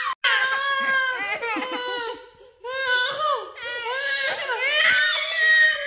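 A young child crying and wailing in long high-pitched cries, with a short break about two and a half seconds in.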